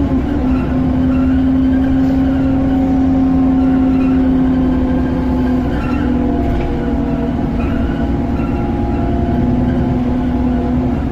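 Alexander Dennis Enviro400 double-decker bus running under way, its drivetrain making a loud, steady whine under a continuous engine rumble.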